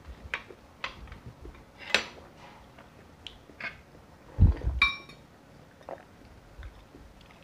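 Eating noises at a table: a few short, sharp clicks and taps of fingers and food against dishes, then about halfway through a loud dull thud and a ringing clink of a glass soup bowl as it is handled and lifted.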